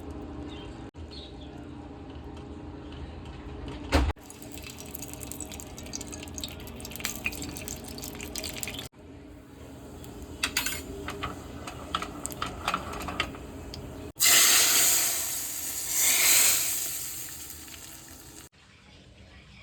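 Cooking sounds in several short cuts: scattered light clinks of a spoon or utensils against a pan, then a sudden loud hissing rush a little past two-thirds of the way in that swells again and fades over about four seconds.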